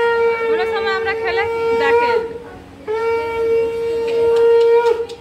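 Conch shell (shankha) blown in two long, steady blasts at a Bengali rice-feeding ritual. The first is already sounding at the start and ends about two seconds in with a slight upward bend. The second starts about three seconds in and lasts about two seconds. Wavering higher sounds ride over the first blast.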